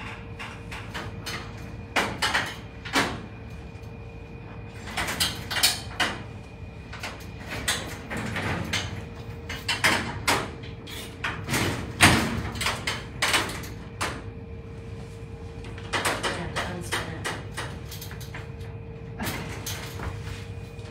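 Wire-mesh cage doors and a wire animal carrier rattling and clanking, in a scattered series of sharp metallic knocks and clatters, the loudest about 12 seconds in. A steady faint hum runs underneath.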